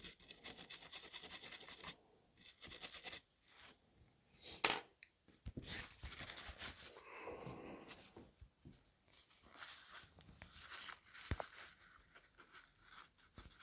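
A small brush scrubbing flux off the tablet's circuit board, stopping about two seconds in. Then faint scattered scrapes and small clicks of tools on the board, with a sharp tick about four and a half seconds in.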